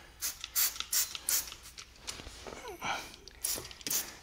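Trigger spray bottle of Simple Green cleaner squirting in a quick series of short hissing sprays, about eight or nine, onto a motorcycle exhaust header.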